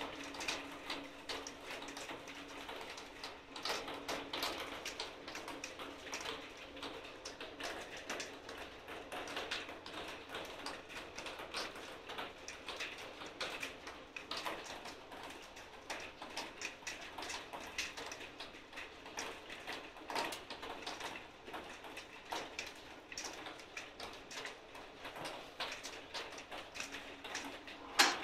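Firewood burning in a handmade wood stove, crackling with irregular small pops and snaps, and one sharper snap near the end.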